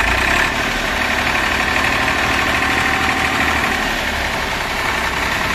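Massey Ferguson 241 DI tractor's three-cylinder diesel engine running steadily at low revs as the tractor moves slowly forward.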